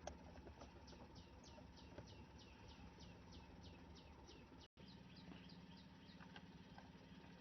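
Near silence with faint bird chirps in the background: a run of quick, falling chirps, about three a second, over a low steady hum, broken by a brief dropout.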